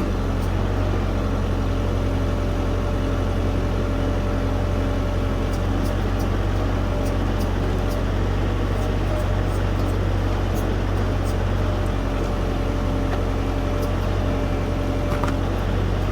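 LS tractor's diesel engine running steadily, driving the backhoe's hydraulics, with faint light ticks over it.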